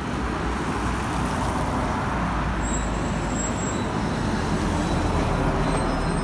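Steady engine and road rumble of a city bus, heard from inside, with street traffic around it.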